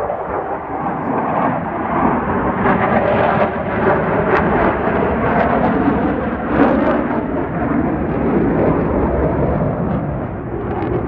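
Loud, continuous jet roar of fighter jets flying over, holding for several seconds with small swells.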